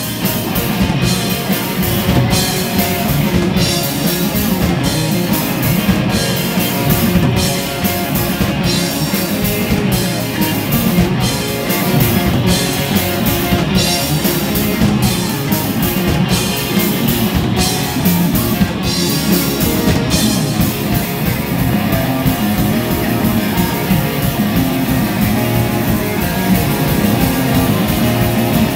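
Live rock band playing, with electric guitar and drum kit. The cymbals cut out briefly on a regular beat until about two-thirds of the way through, then ring on without a break.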